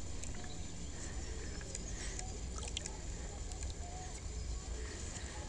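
Steady wind rumble on the microphone over outdoor ambience, with a few faint short bird chirps.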